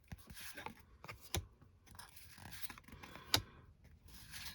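Trading cards being handled and slid against one another: faint rustling and scraping with a few sharp clicks, the two loudest about a second and a half in and past the middle.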